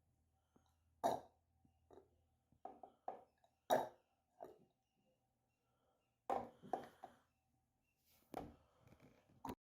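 About a dozen irregular knocks and clunks, some sharp and a few deeper thuds in the second half, over a faint steady hum.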